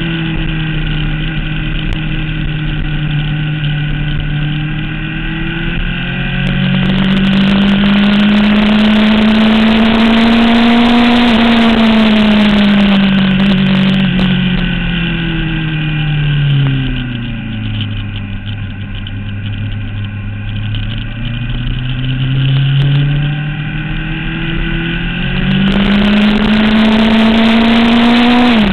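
Sport motorcycle engine at speed with wind rushing past the onboard microphone. The engine climbs steadily in pitch and then falls away for several seconds as it slows. It holds low for a moment and then winds up again, with a quick dip near the end like a gear change.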